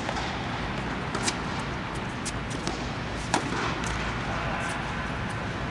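Tennis balls struck by racquets in a doubles rally: a serve hit right at the start, a return about a second later, and the loudest, sharpest hit about three and a half seconds in. Fainter clicks fall between the hits, over a steady background rush.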